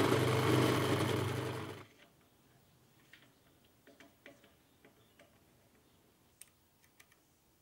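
Small bench drill press running steadily while drilling into a cast metal lever handle, stopping abruptly about two seconds in. Then scattered light clicks and taps of metal parts being handled as the handle is fitted onto its shaft.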